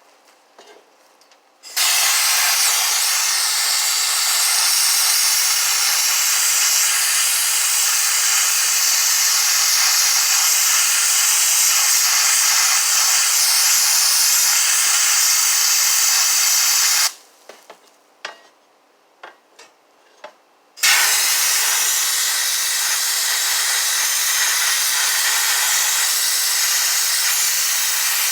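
Sandblaster blasting abrasive with compressed air onto a rusty steel body panel to strip rust from its corners: a loud steady hiss that starts about two seconds in, cuts off for a few seconds with a few light clicks, then starts again.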